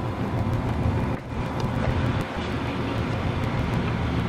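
Steady low rumble of city background noise, like traffic far below, with a brief dip about a second in.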